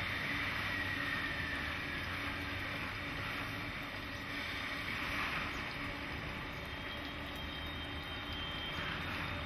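Steady hum and hiss of standing EF64 and EH200 electric locomotives with their auxiliary equipment running in the depot. A faint high whine fades away over the first two seconds.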